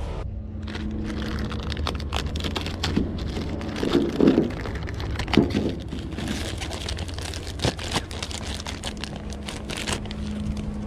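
Scattered clicks, light knocks and rustling from hand work on parts, loudest about four and five and a half seconds in, over a steady low hum.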